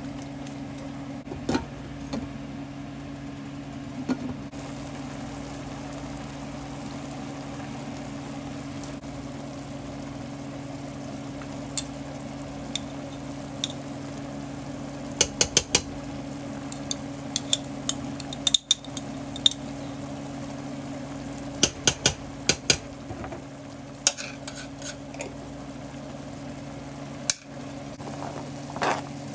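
Spatula stirring pork and squash in a stainless-steel pan, with scattered clinks and scrapes of utensil and glass lid against the pan, in small clusters, over a steady low hum.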